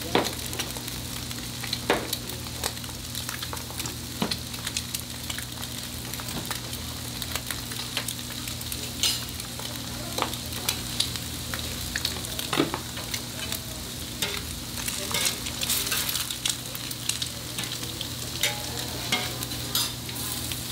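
Hamburger fillings sizzling on a hot griddle, a steady hiss broken by scattered clicks and scrapes of a metal spatula.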